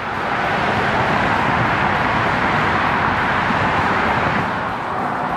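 Road traffic passing below: a steady rush of tyre and engine noise that swells at the start and eases off about four and a half seconds in.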